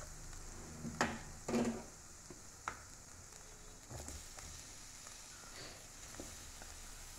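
A slotted steel spoon stirring and scraping a coconut and chilli mixture around a metal frying pan over a faint sizzle, with a few sharp scrapes in the first three seconds, then quieter stirring.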